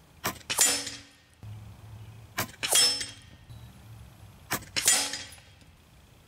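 .22 RAW HM1000X LRT PCP air rifle firing three shots about two seconds apart. Each shot is a sharp crack followed a fraction of a second later by a louder burst with a ringing tail.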